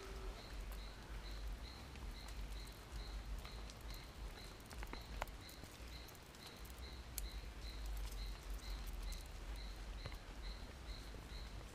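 Quiet forest background: a faint high chirp repeating steadily about three times a second, over a low rumble, with scattered faint clicks and rustles in the leaf litter.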